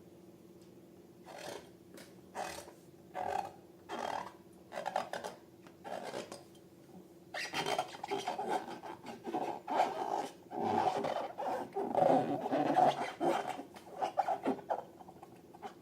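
Hands working slime and rubber balloons, squishing and rubbing. First come separate squelches about once a second, then about halfway through a denser, louder run of continuous squishing and rubbing.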